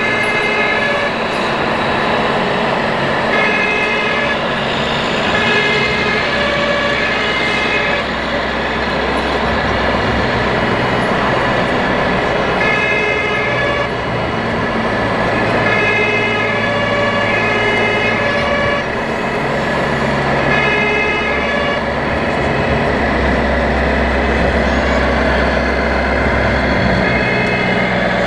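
Electronic sound modules of RC model trucks: a steady diesel-engine rumble that swells and changes pitch as the trucks move, with a two-tone emergency siren repeating over it.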